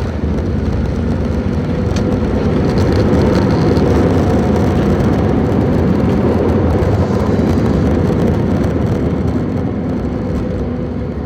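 Cabin noise of an Airbus A320neo landing: a loud rumble of engines and runway. It swells over the first four seconds, then slowly eases as the aircraft decelerates.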